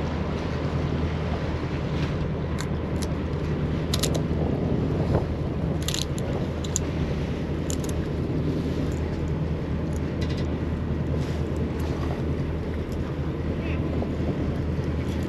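Steady low hum of a party boat's engine, with wind buffeting the microphone and a few sharp clicks and knocks about four to eight seconds in.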